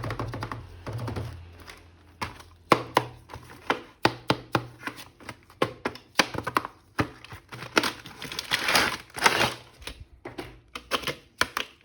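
Hard plastic toy parts and packaging being handled: a quick, irregular run of clicks and taps, with a brief stretch of rustling about eight to nine seconds in.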